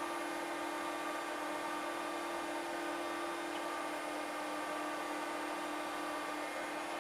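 Steady whir and hum of a powered-on Quantel HAL Express video compositing system as it boots.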